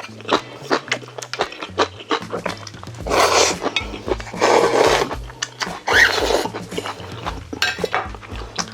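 Close-miked eating of Vietnamese rice noodles: steady wet chewing clicks and smacks, with three louder, longer slurps about 3, 4.5 and 6 seconds in.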